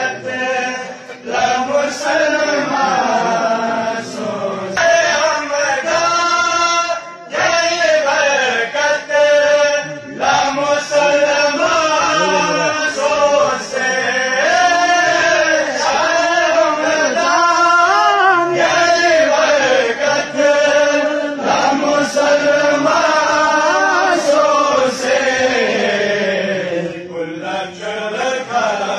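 Male voices singing a devotional kalam as a chant, with long held notes that bend up and down.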